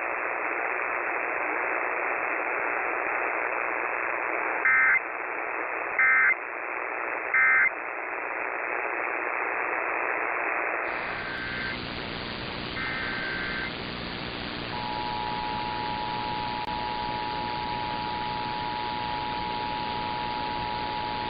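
Radio static carrying three short, loud EAS (SAME) digital data bursts about a second and a half apart, the end-of-message code. After a cut come two fainter data bursts, then from about 15 seconds in the steady two-tone EAS attention signal (853 and 960 Hz).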